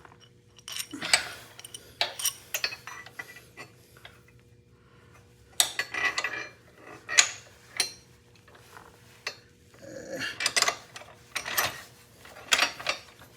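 Metal clinking and tapping as bolts, a spacer and hand tools knock against the motorcycle frame and crash-guard bracket while the spacer is worked into place. The clinks come in scattered clusters, with a quieter stretch in the middle and a busier run near the end.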